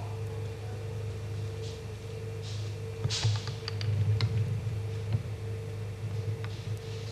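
Steady low electrical hum, with a few soft clicks and short hisses about three to four seconds in.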